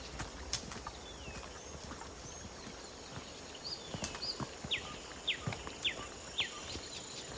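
Birds calling in forest: two short high chirps, then a run of four falling whistled notes about half a second apart, over scattered clicks and crunches of footsteps on the trail. A faint thin high tone runs steadily beneath.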